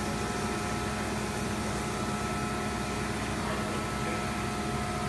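Industrial machine running with a steady hum and several constant tones over an even noise.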